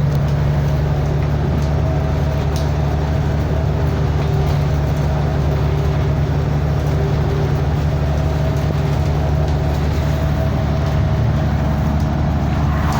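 A vehicle engine running steadily at constant revs, a loud, even low drone that holds the same pitch throughout.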